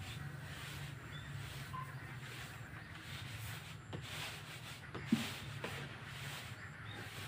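Unhusked rice poured from a bucket in front of a standing electric fan to winnow it, the grain hissing as it falls onto the tarp in swells, over a steady low hum. A sharp knock about five seconds in.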